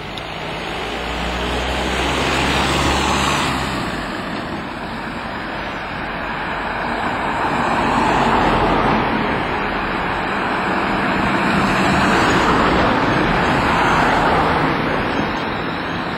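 Street traffic: cars pass close by one after another, swelling loudest about three, eight to nine, and twelve to fourteen seconds in. A low engine hum runs under the first four seconds.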